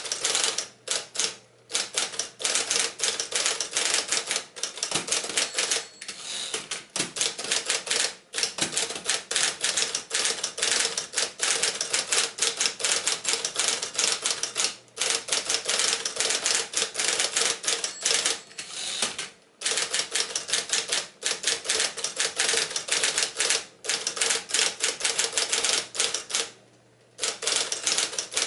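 Smith-Corona 5TE electric portable typewriter being typed on at speed: a fast, continuous run of key strikes over a steady hum, broken by a few short pauses.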